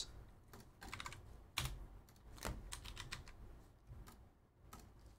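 Faint, irregular keystrokes and clicks of typing on a computer keyboard, the sharpest about one and a half seconds in.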